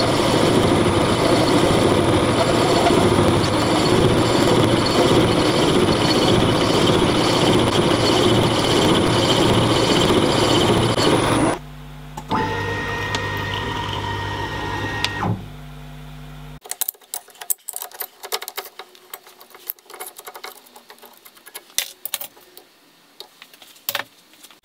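Workshop machine tool running: a loud, steady mechanical noise with a regular ticking about twice a second, which cuts off suddenly about halfway through. A motor hum follows for about three seconds, then quieter scattered clicks and knocks of parts being handled.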